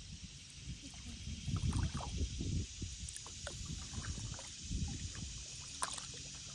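Stand-up paddleboard paddle strokes in creek water, with small splashes and drips off the blade, and some wind rumble on the microphone.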